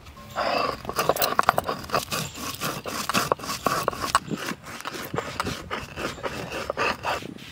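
Stone roller grinding dry-roasted whole cumin and garam masala on a stone grinding slab (shil-nora). The stone rocks back and forth with gritty scraping and quick crunching clicks, starting about half a second in.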